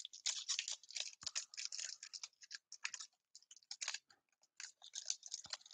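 Foil wrapper of a Topps trading-card pack crinkling and crackling as it is handled and torn open by hand, a run of irregular quiet crackles with a brief pause near the end.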